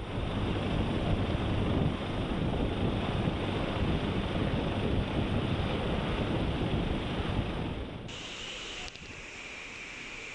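Helicopter hovering close by: loud rotor and engine noise, with rotor wash buffeting the microphone. About eight seconds in it cuts to the quieter, steady rush of a ship's churning wake.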